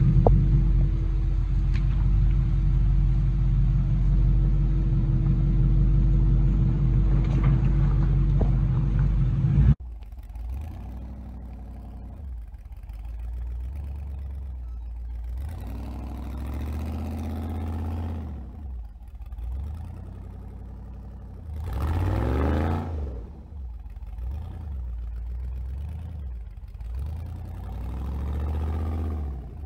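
Side-by-side UTV's engine running loudly and steadily with a constant hum as it crawls up a rock ledge. About ten seconds in it cuts to a quieter off-road buggy engine revving up and down again and again, the strongest rev rising and falling in pitch about two-thirds of the way through.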